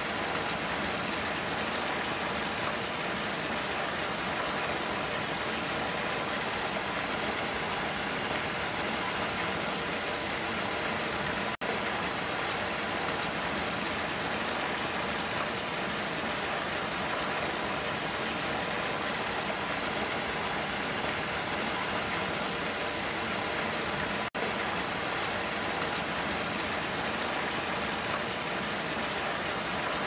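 Running water pouring over a small cascade, a steady, even rush. The sound cuts out for an instant twice, about twelve and twenty-four seconds in.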